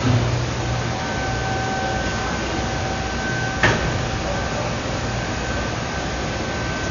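Steady hiss with a low hum and a faint high whine, broken by a single sharp knock about three and a half seconds in.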